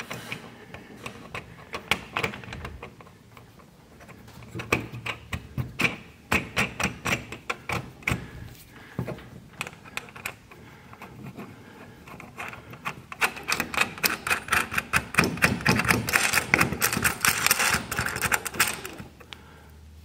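Socket ratchet clicking in quick runs as it tightens the nuts on the carriage bolts of a garage door opener bracket. The longest, loudest run of clicks comes in the last third.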